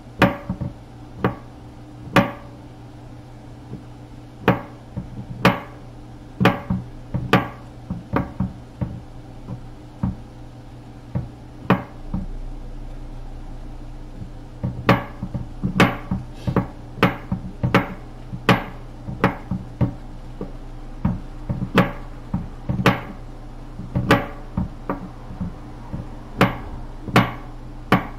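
Kitchen knife chopping on a wooden cutting board: a run of sharp knocks, spaced about a second apart at first, then quicker and bunched together in the second half, over a steady low hum.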